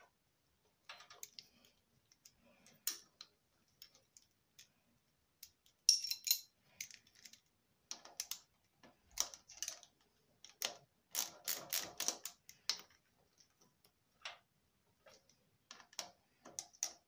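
Irregular light metallic clicks and taps as a spanner and Allen key work the bolts of the P-clips holding a CDI unit to a motorcycle frame tube. The clicks come in scattered bursts, busiest around the middle.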